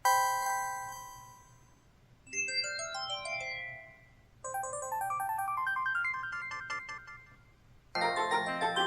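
The built-in system alert tones of an LG LB3300 Cyon Rhapsody music phone, played one after another. A single electronic chime fades over about two seconds, then comes a falling run of quick notes, then a longer melodic jingle, and another tone begins near the end.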